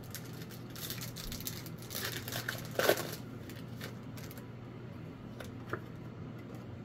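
Crinkling and crackling of a foil booster-pack wrapper being handled, loudest about three seconds in, then a few light clicks of trading cards being picked up.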